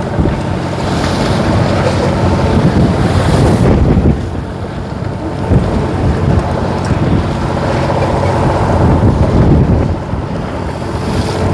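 Wind buffeting the microphone over the steady running of a fishing boat's engine.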